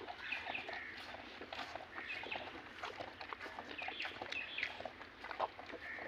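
Small birds chirping in short, high calls every second or two, over scattered soft smacking clicks of a calf sucking at its mother's udder.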